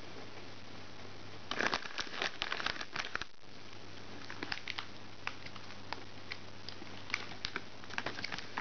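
Snack packaging crinkling as it is handled, in a dense run about a second and a half in, then scattered small clicks and rustles.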